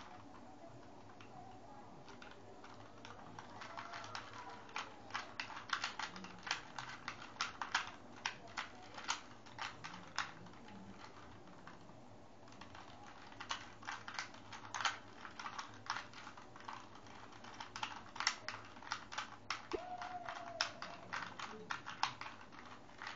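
2x2 Rubik's cube being turned by hand: quick runs of plastic clicks as its layers are twisted, starting a few seconds in, with a short pause near the middle.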